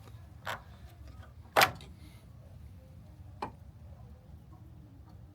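Three sharp plastic clicks and knocks, the loudest about a second and a half in, as a pickup's headlight assembly and its retaining tabs are worked loose.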